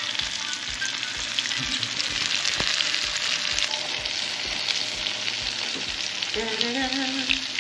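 Pieces of fish milt (shirako) deep-frying in a small pan of hot oil, sizzling steadily while they are turned with chopsticks.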